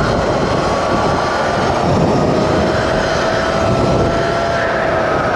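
Sur-Ron electric dirt bike's motor whining as it speeds up, its pitch climbing slowly, under heavy wind rush over the microphone.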